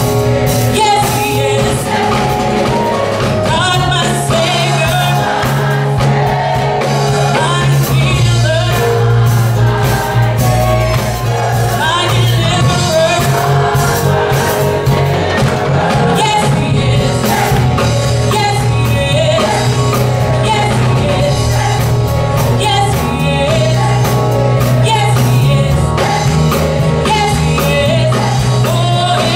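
Gospel choir singing loudly in full voice, with steady low instrumental accompaniment underneath.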